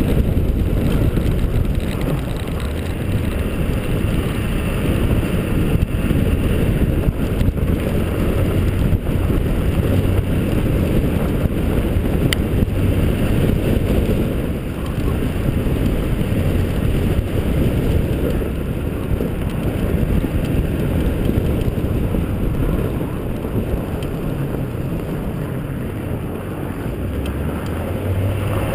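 Steady rush of wind buffeting an outside-mounted camera and road noise as a 2002 Chevrolet Silverado pickup drives at speed over a snow-covered road.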